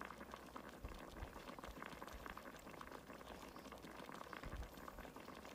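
Faint bubbling of a pot of chicken stew simmering, a steady patter of many small pops.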